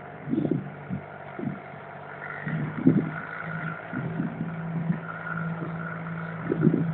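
Small river ferry boat's engine running, its hum growing louder and steadier a couple of seconds in as the boat pulls away from the pier. A few short, irregular low thumps come in the first three seconds.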